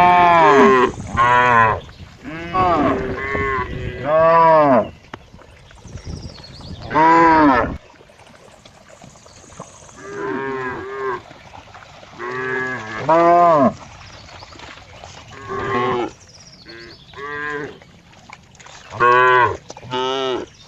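A cow mooing over and over: about a dozen short moos, each rising and falling in pitch, some coming in quick pairs, with pauses between groups.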